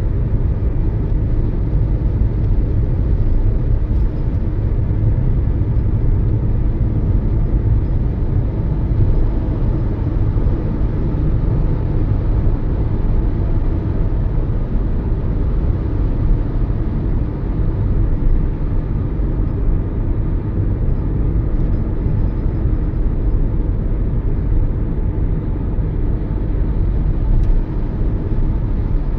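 Toyota Yaris driving along: steady engine and tyre noise, a constant low rumble that holds even throughout.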